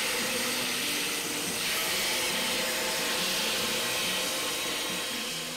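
Large ship's bandsaw, about 120 years old, running with its blade cutting steadily through a heavy timber, giving a continuous hiss that eases off slightly near the end.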